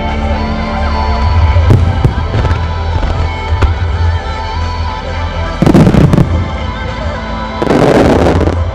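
Fireworks shells bursting over music: a few sharp bangs early, a loud burst about six seconds in, then a dense crackling burst near the end.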